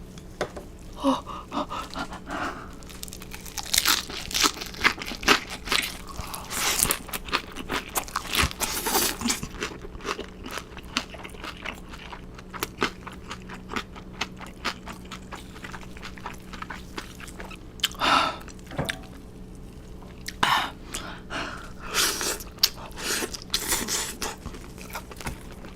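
A person eating close to the microphone: chewing and crunching with many sharp clicks and wet mouth sounds at an irregular pace, over a faint steady hum.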